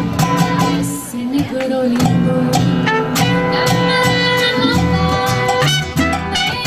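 A live Latin band plays: trumpet and flute over acoustic guitar and congas, with one long wind note held through the middle.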